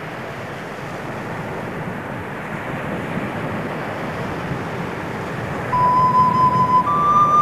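Ambient music: a steady rushing noise like wind or surf, with no melody for most of the stretch. About six seconds in, a held flute-like note enters, and it steps up to a higher note about a second later.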